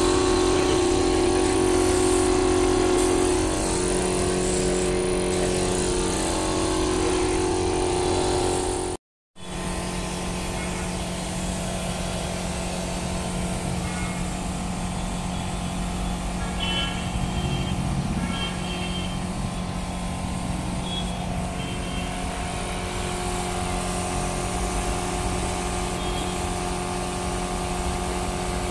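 Air compressor running steadily to feed a paint spray gun, with the hiss of the spraying over it. It drops out briefly about nine seconds in and carries on a little quieter.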